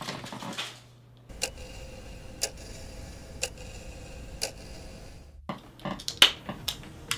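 A clock ticking about once a second, then a drink can's ring-pull clicked and cracked open near the end, the crack of the tab the loudest sound.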